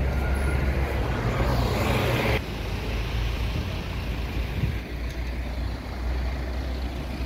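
Road traffic on a city street: a steady low rumble of engines, with a louder hiss of a passing vehicle in the first two and a half seconds that cuts off suddenly.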